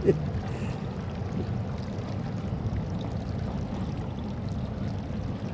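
Steady rushing of water with a low rumble, as from a boat moving through the water.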